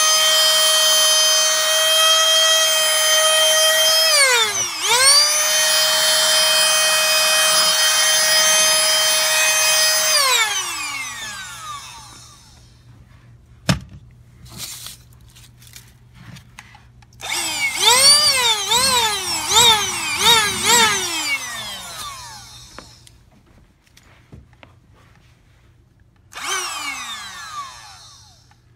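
Canless Air O2 Hurricane cordless electric air duster blowing: its motor gives a high-pitched whine over a rush of air, dips and spins back up about four seconds in, then winds down with a falling whine around ten seconds in. After a sharp click, it is pulsed in about six quick bursts, each rising and falling in pitch, and near the end it runs briefly once more and winds down.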